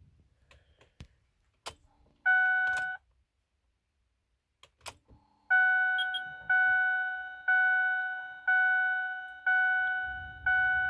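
Ford Super Duty dashboard warning chime as the ignition key is cycled on: a few soft clicks, then a single ding, then a run of six dings about once a second. A low rumble starts near the end.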